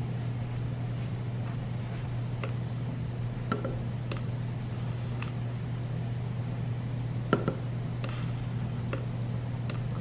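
Rechargeable electric arc candle lighter firing its arc in three short high-pitched buzzing bursts, the last as it lights a candle wick, with a few faint clicks between. A steady low hum lies underneath.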